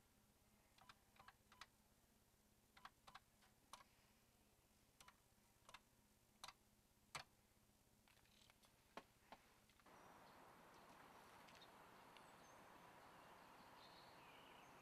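Buttons on a desk telephone's keypad being pressed one after another: a long run of short sharp clicks at uneven intervals, with no dial tones. About ten seconds in the clicks stop and a steady faint background hiss takes over.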